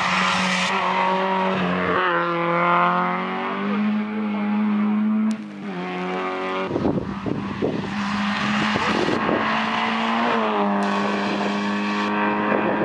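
Rally car engines at full throttle, first a Peugeot 306. The note climbs through the gears and drops at each upshift. From about seven seconds in, a rough low rumbling runs under the engine note as a second car comes through.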